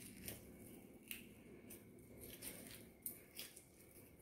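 Faint scraping of a small metal spoon inside a peeled potato as it is turned and dug out to hollow the potato, in short strokes about twice a second.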